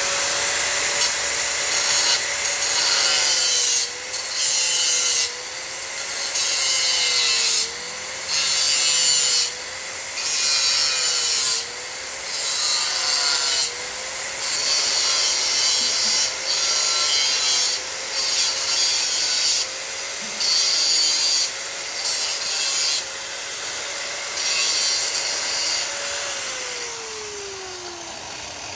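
A power cutting tool, most likely an angle grinder, spins up and cuts metal from an old oil filter in repeated strokes, its motor note dipping slightly at each bite. It winds down near the end.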